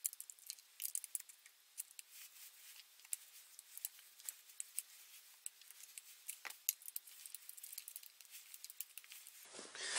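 Light metallic clicks and ticks of a hex key, turned by hand and with pliers, driving the screws back into a small engine's plastic cover. A louder rubbing rustle starts near the end.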